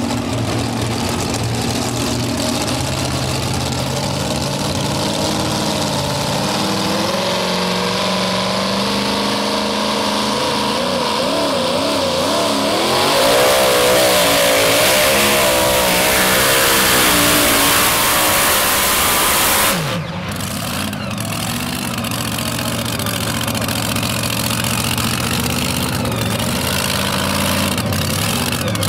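Supercharged engine of a modified two-wheel-drive pulling truck under full power on a pull: the revs climb and waver for several seconds and peak loudest. About two-thirds of the way through the power cuts off suddenly, the pitch drops, and it settles to a steady idle.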